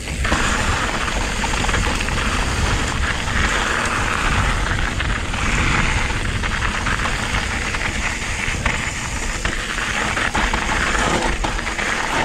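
Riding noise of a Specialized Turbo Levo electric mountain bike descending a loose, steep trail: tyres crunching over dirt and gravel, a constant clatter of small knocks from the bike, and wind on the microphone.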